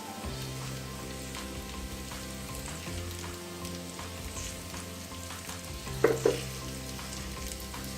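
Marinated paneer pieces sizzling and crackling in hot oil in a pan, with two brief louder knocks about six seconds in.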